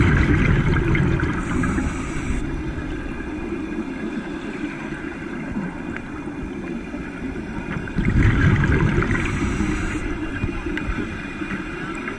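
Underwater bubbling and rumble of divers' exhaled air, in two loud surges about eight seconds apart, each fading over a couple of seconds, with a steadier bubbling between, heard through an underwater camera housing.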